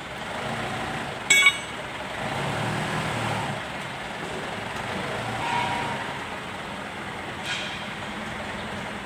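A short, sharp metallic clink about a second and a half in, as a steel tool is set down, then the steady rumble of road traffic, swelling about three seconds in and again near the middle.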